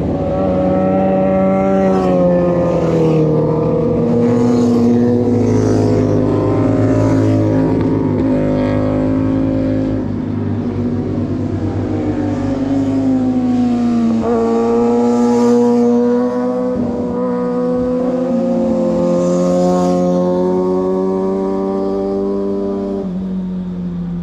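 Motorcycle engines revving hard, their pitch climbing and dropping again and again as the riders shift through the gears and work the throttle through the corners.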